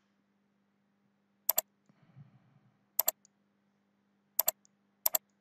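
Computer mouse clicking four times, each click a quick double snap of press and release, spread a second or so apart.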